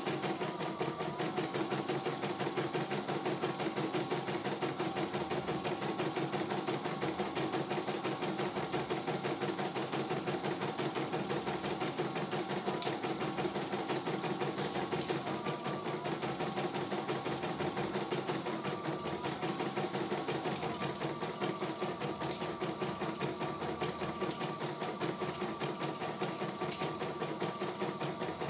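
CNY E900 computerized embroidery machine stitching a design, its needle running at a rapid, even rate without pause.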